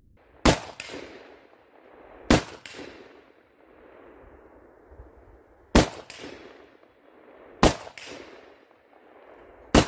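Five single shots from a Zastava ZPAP92 AK pistol in 7.62×39 fitted with its original muzzle booster, fired at an uneven pace about two to three seconds apart. Each sharp crack is followed a moment later by an echo off the trees.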